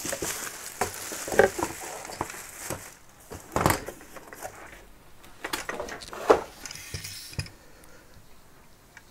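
Thin plastic packing wrap rustling and crinkling as it is pulled off, followed by a series of knocks and clatters as hard parts are handled and set down on a desk mat.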